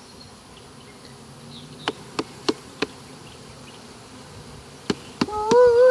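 A mass of honey bees buzzing around an opened hive, with four sharp taps about two to three seconds in and two more near the end. A loud, held, slightly wavering pitched tone begins just before the end.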